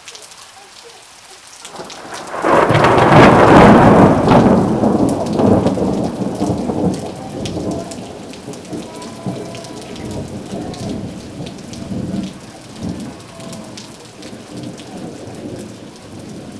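Steady rain falling, with many small drop ticks. About two seconds in, a loud clap of thunder breaks out and rolls on as a long rumble that fades slowly over the next ten seconds or so.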